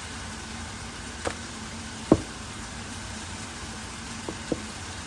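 Chicken pieces frying in a pan with a steady sizzle, and a few short knocks of a utensil against the pan, the loudest about two seconds in.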